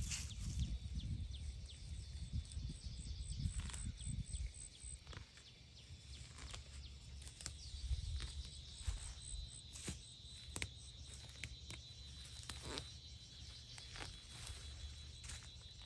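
Insects chirping in the background: a quick repeated high chirp at first, then a steady high trill from about halfway through. Scattered soft clicks and rustles come and go over it.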